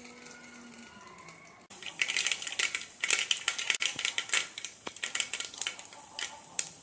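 Mustard seeds crackling and popping in hot oil in a metal pot: a dense run of sharp pops starts about two seconds in and thins to scattered pops near the end. The spluttering is the sign that the oil is hot enough for tempering.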